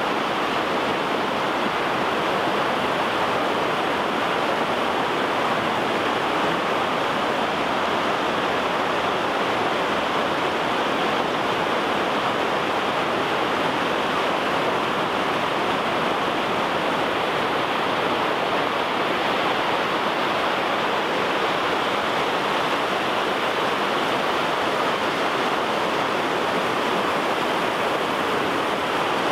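Whitewater of the South Fork Snoqualmie River rushing over and between boulders below the falls, a steady, unbroken rush of water.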